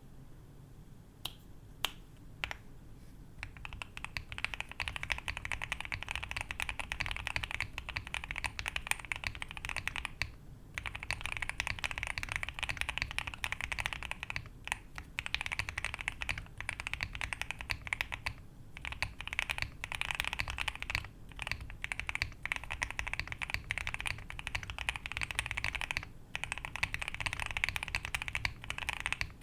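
Typing on a QK65 mechanical keyboard with lubed and filmed Gateron CAP Golden Yellow linear switches, a POM plate and PBT cherry-profile keycaps, the case filled with foam and silicone. A few single key presses come first, then a rapid, continuous stream of keystrokes from about three seconds in, broken by a few short pauses.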